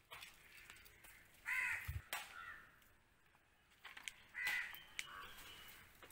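A crow cawing twice, about a second and a half in and again about four and a half seconds in, with a few faint knife taps against a plastic cutting board in between.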